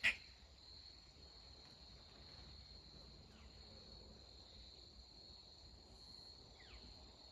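Insects, crickets by the sound of it, trilling in one steady, unbroken high note over faint outdoor background, with two faint calls that fall in pitch near the middle and near the end.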